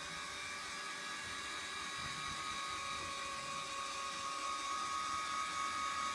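Electric linear actuator motor whining steadily as it pushes the engine hatch open, getting a little louder in the last couple of seconds.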